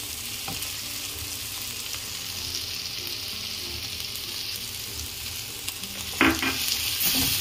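Chopped vegetables sizzling in hot oil in a kadhai on a high flame, a steady hiss. About six seconds in a spatula knocks against the pan and stirring begins, and the sizzle grows louder.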